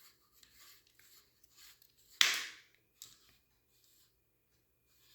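Small metal and plastic paintball-marker parts being handled and fitted together: soft scrapes and light clicks, with one louder knock and slide a little over two seconds in.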